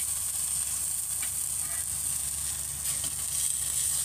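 Eggplant slices sizzling steadily in oil on a flat tawa griddle, with a couple of faint spatula scrapes as the slices are turned over.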